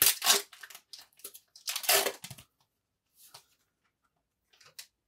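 Trading-card pack wrapper being torn open and crinkled in short rustling bursts, strongest at the start and about two seconds in, followed by a few faint rustles as the cards are handled.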